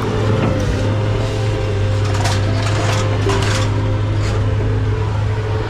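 Scrap metal being handled and sorted: a few light clanks and rattles from about two seconds in, over a steady low hum.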